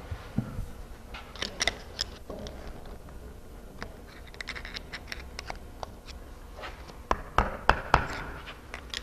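Steel screwdriver blades scraping and clicking against the piston rings and studs as the power hammer ram's rings are squeezed into the cylinder. Scattered light metal ticks, with a few sharper, louder clicks near the end.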